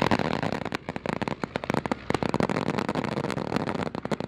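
Ground pyrotechnics going off: a fast, uneven string of sharp firecracker-like pops and crackles that starts suddenly.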